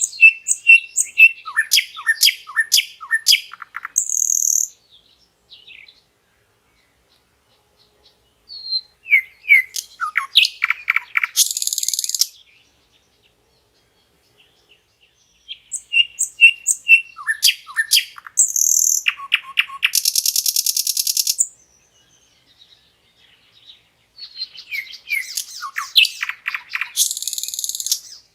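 Common nightingale singing four separate song phrases, each a few seconds long, with a pause of a few seconds between them. Each phrase is a run of repeated whistled notes and quick falling notes that ends in a harsh buzzing rattle.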